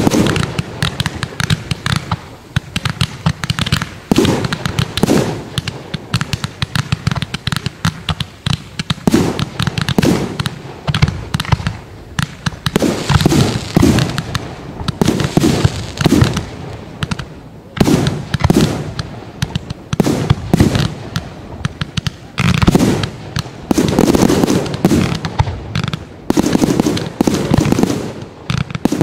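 Fireworks display firing in rapid volleys: a dense run of bangs, cracks and pops. The shots come in heavier clustered waves from about halfway through.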